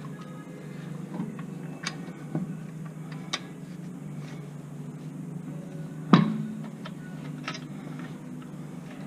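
Scattered clicks and knocks of tools and brake parts being handled during a rear brake pad change, with one loud clank about six seconds in, over a steady low hum.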